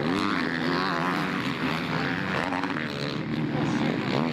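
Several motocross bike engines running together, their pitches rising and falling as the riders rev and shift around the track.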